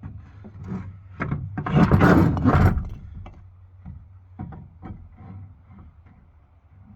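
Things being handled and shifted: a loud rubbing scrape lasting about a second, with a few sharp knocks before and after it.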